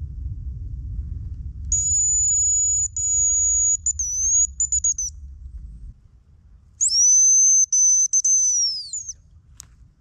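Hazel grouse decoy whistle blown to imitate a hazel grouse's call. A long, thin, high whistle is held for about three seconds and breaks into a few short notes. After a pause, a second whistle rises, holds and falls away at its end.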